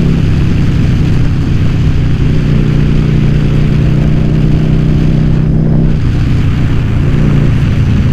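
Yamaha Virago XV750's air-cooled V-twin engine running at a steady cruise under way, with rushing wind noise; the engine note shifts slightly a few seconds in and again near the end.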